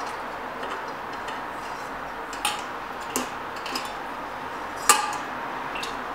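Wire-mesh bird feeder being opened and filled with fat balls: its metal cage, tray and lid clink sharply about five times, the loudest near the end, over a steady background hiss.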